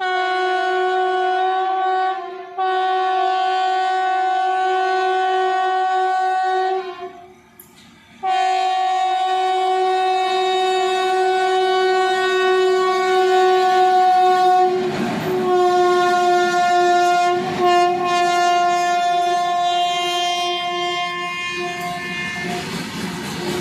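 Horn of an Indian Railways electric freight locomotive sounding long, steady blasts at one pitch. It sounds for a few seconds with a brief catch, stops for about a second and a half, then holds one long blast of about fourteen seconds as the locomotives pass, with a couple of short clanks partway through. Near the end the horn stops and the rumble and clatter of the passing goods wagons takes over.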